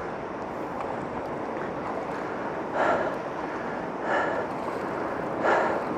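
A person breathing hard, with three loud exhalations about a second and a half apart in the second half. Under it runs a steady wash of sea water and wind noise.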